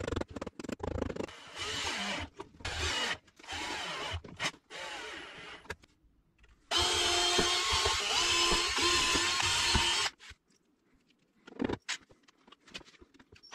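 An electric motor runs steadily for about three seconds with a steady whine, then cuts off abruptly. Several shorter bursts of noise come before it.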